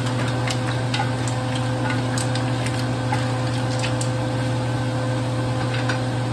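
Mussels and vegetables cooking in a hot wok, stirred with a wooden spoon that clicks and scrapes against the pan now and then. A steady low hum runs underneath.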